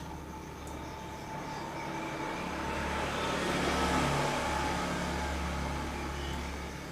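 A vehicle passing by: a broad rushing noise that swells to a peak about four seconds in and then fades away.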